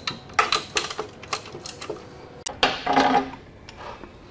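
Ratchet wrench clicking in short irregular runs as a spark plug is unscrewed, with a louder metallic rattle about two and a half seconds in.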